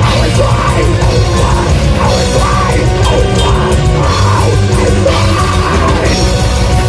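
Black metal band playing at full volume: distorted electric guitars and a fast, steady drum kit pulse, with no vocals.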